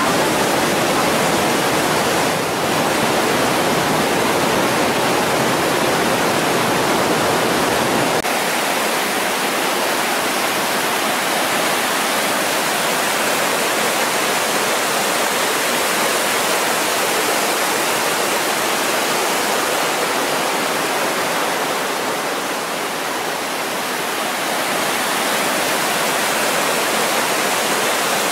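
The Breitach river's whitewater rushing through a narrow rock gorge, a loud, steady rush of water. Its deepest rumble drops away about eight seconds in.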